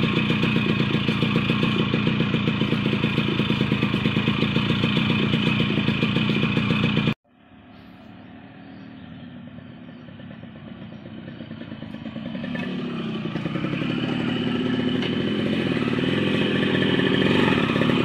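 Yamaha RX100's 98 cc two-stroke single-cylinder engine running steadily at a fast idle, a quick even putter. About seven seconds in the sound cuts off abruptly. The same two-stroke is then heard approaching, growing steadily louder with its revs rising and falling as it is ridden closer.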